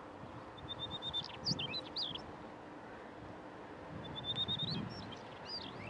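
A songbird singing two phrases, each starting with a quick run of even high notes and ending in a few sweeping, up-and-down notes. The first comes under a second in, the second about four seconds in.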